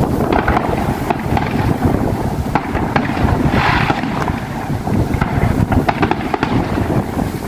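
Heavy wind buffeting the microphone, with many sharp pops and crackles of distant fireworks scattered through it during the display's finale.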